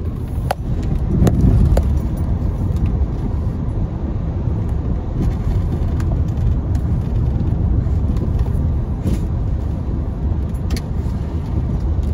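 Car driving on rain-wet streets, heard from inside the cabin: a steady low road and engine noise with scattered sharp taps.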